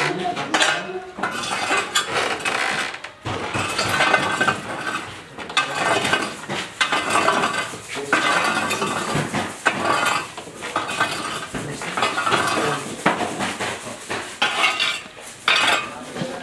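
Metal kitchenware clattering and clinking over and over, with scraping in between, as in busy work in a bakery.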